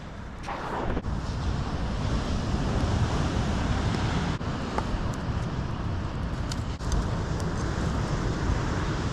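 Wind buffeting the microphone outdoors: a continuous, uneven low rumble, with a few faint ticks in the middle.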